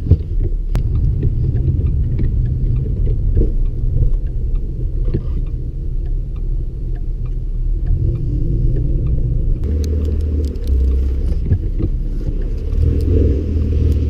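Car moving slowly on an icy, wet road, a steady low rumble of engine and road noise. A faint tyre hiss joins about ten seconds in.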